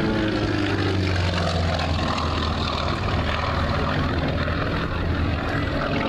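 Sukhoi Su-31 aerobatic plane's nine-cylinder radial engine and propeller running with a steady drone, its pitch dipping slightly in the first second or so.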